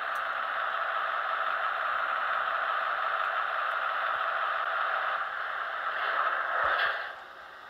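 Running sound of a Märklin HO model of the DB VT 10.5 'Senator' diesel railcar, a sound-equipped digital model: a steady hiss-like rush that stops about seven seconds in, just after a short burst and a soft thump, then fades.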